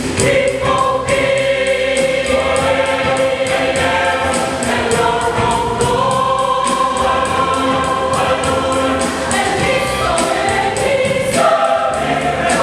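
Choir singing a gospel song in full harmony, with a steady beat of short strokes about three to four times a second.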